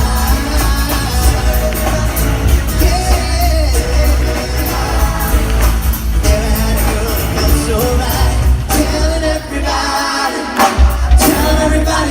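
Live pop band music with vocal harmony singing, heavy bass and drums, heard in a large concert hall; the bass drops out briefly about ten seconds in.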